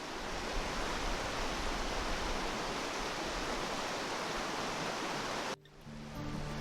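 Steady rush of a fast-flowing river. About five and a half seconds in, it cuts off abruptly and music with sustained tones begins.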